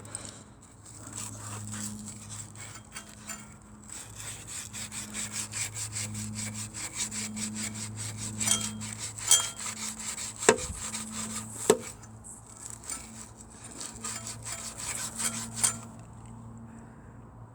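Hand scraping and rubbing on a small engine valve, about three strokes a second, cleaning it off. Two sharp metallic clinks come partway through, over a steady low hum.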